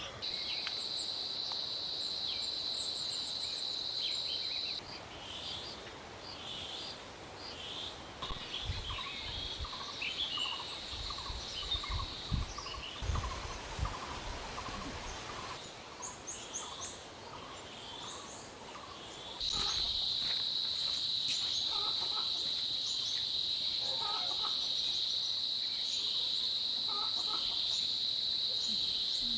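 Outdoor garden ambience: a steady high-pitched insect buzz that drops out after about five seconds and returns strongly about two-thirds of the way in. In between there are scattered short bird and fowl calls and a few low thumps.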